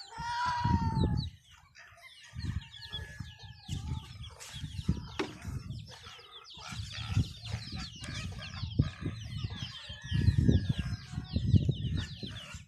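Chickens clucking, with a pitched call in the first second and many quick, high, falling chirps throughout, over irregular low rumbling.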